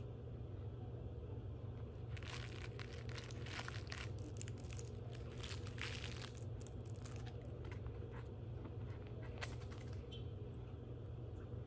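Shiny foil gift bow crinkling and crackling as a puppy chews and paws at it: a dense run of quick crackles starting about two seconds in and stopping shortly before the end, over a steady low hum.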